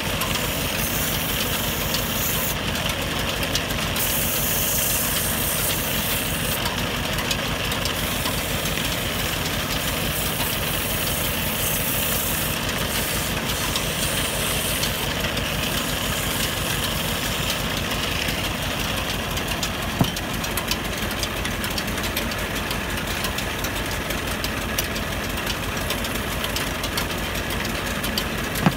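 Wood lathe motor running steadily, spinning a wooden rolling pin, with a scraping hiss that comes and goes as a tool is pressed against the turning wood. A single sharp click about twenty seconds in.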